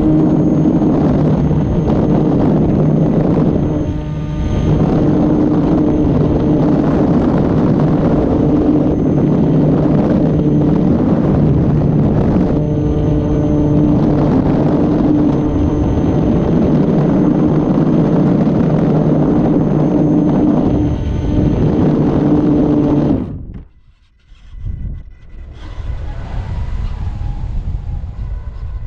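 Torcster A3542/6 brushless outrunner motor spinning the propeller of an electric glider, heard from on board: a loud, steady drone with a thin high whine. It runs for about 23 seconds, then cuts off abruptly, leaving a quieter, uneven rushing sound.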